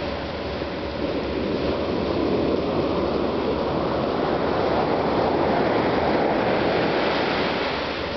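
Ocean surf on a beach: a steady rush of waves washing up the sand, swelling from about a second in and easing off near the end.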